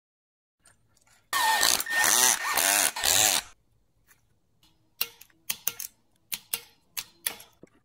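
A loud rasping noise with a wavering squeal, lasting about two seconds, then a hand ratchet wrench clicking in short runs as the handlebar stem bolts are tightened.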